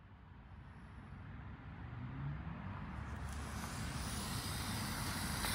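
Road traffic going past, a low steady noise that fades in from silence and grows louder throughout.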